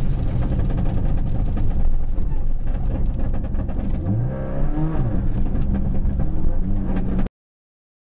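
Subaru Impreza WRX rally car heard from inside the cabin, driven hard over a rough gravel road: the engine runs at high revs and its pitch dips and climbs through gear changes about four seconds in, over a constant clatter of sharp knocks. The sound cuts off suddenly near the end.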